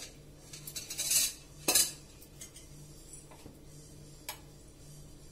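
A few separate clinks and knocks of metal kitchen utensils against cookware, the sharpest about one and a half seconds in, over a faint steady low hum.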